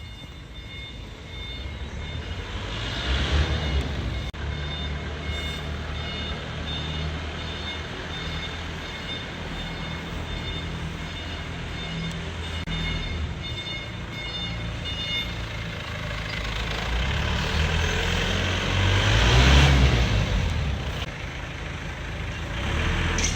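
Heavy vehicle engine running, with a reversing alarm beeping steadily for the first fifteen seconds or so. About twenty seconds in, the engine swells loudly as a vehicle passes close.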